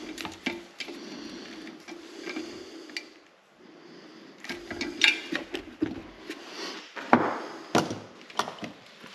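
Ratchet wrench clicking and metal parts being handled during heater assembly: irregular clicks and clatter, a short lull, then several sharper knocks.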